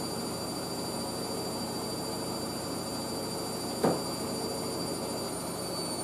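Hoover SIX AAA160 Whisper 1600 washing machine spinning at a steady speed in an intermediate rinse spin, a constant run of drum and motor noise with a thin high whine. A single short knock about four seconds in.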